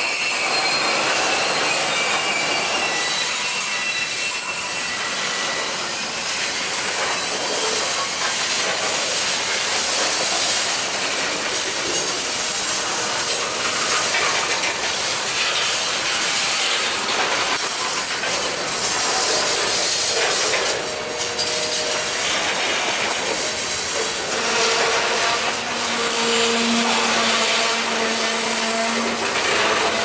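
Covered hopper cars of a freight train rolling past close by: steady clatter and rumble of steel wheels on the rails, with thin squealing tones coming and going.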